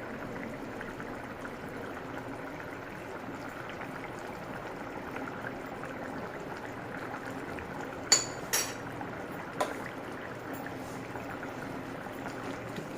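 Chicken curry simmering in a pot, with a steady bubbling. About eight seconds in come three sharp clinks, the first the loudest, from a utensil knocking against the pot.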